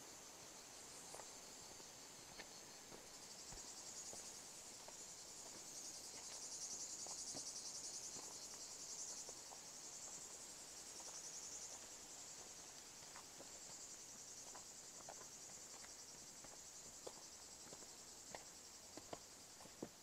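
Faint, high, continuous insect song from the surrounding woods, swelling for several seconds in the middle, with soft scattered footsteps on a dry dirt path.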